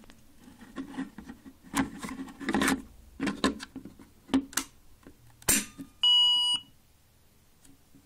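Clicks and knocks of the test key working a Gent manual fire alarm call point, then about six seconds in a Roshni fire alarm sounder gives one loud steady tone lasting about half a second. This is the alarm going off through the latching relay, which then keeps it sounding in pulses.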